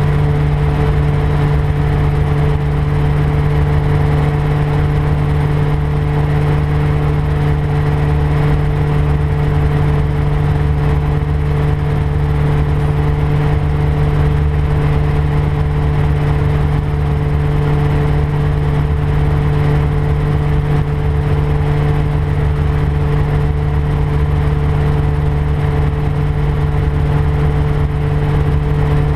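Rotorway 162F helicopter's engine and rotor drivetrain running at steady takeoff and climb power: a loud, unchanging drone with a strong hum and a rough low rumble beneath it. The engine is a four-cylinder horizontally opposed unit.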